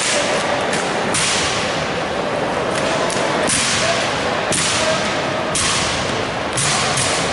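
Drill rifles being slapped, spun and struck during an armed exhibition drill routine: a series of about seven sharp cracks and thuds, roughly one a second, over steady background noise.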